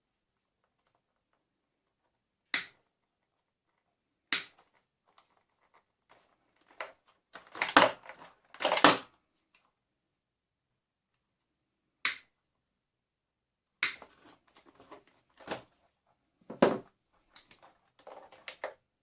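Plastic and metal parts of a vacuum cleaner being pried and snapped apart: sharp single cracks at irregular intervals, with louder crunching bursts about eight and nine seconds in and again near the end.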